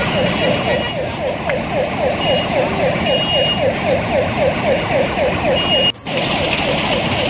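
Emergency vehicle siren on a rapid yelp, about four rising sweeps a second, cutting out for a moment about six seconds in.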